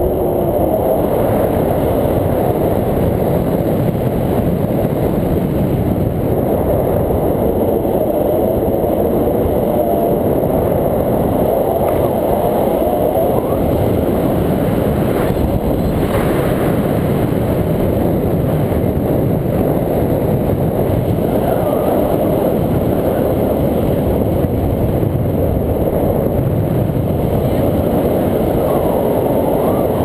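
Steady rush and rumble of wind buffeting an action camera's microphone in flight under a tandem paraglider.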